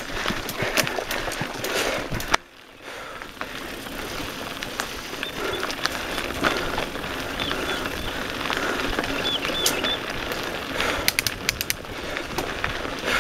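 Mountain bike ridden over a rocky dirt singletrack: tyres rolling on loose dirt and stones with the bike rattling and knocking over the bumps. A sharp knock about two seconds in is followed by a brief dip in the sound before the rolling and rattling pick up again.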